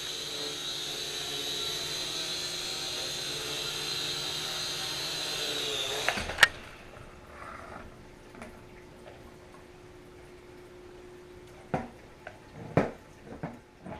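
Syma X5C-1 quadcopter's motors and propellers whining steadily in flight. About six seconds in, the whine stops at a sharp clack as the quad sets down and the motors cut out. A few light knocks follow near the end.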